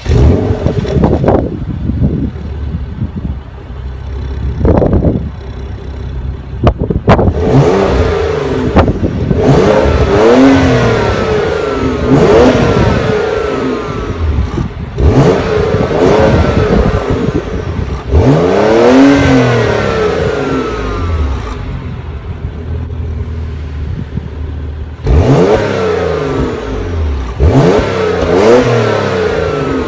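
2016 Porsche Macan Turbo's 3.6-litre twin-turbo V6, heard at the rear exhaust tips in normal exhaust mode. It flares loudly as it starts, settles to idle, then is revved over and over in quick blips, with one longer rev about two-thirds of the way through.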